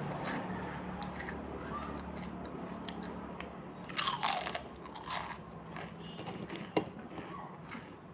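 Crisp pani puri shells crunching as they are bitten and chewed close to the microphone. The loudest burst of crunching comes about four seconds in, with lighter crackles after it.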